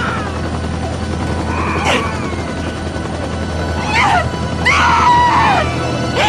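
A woman screaming and wailing in anguish, several long falling cries. Underneath is the steady drone of a helicopter's engine and rotor inside its cabin.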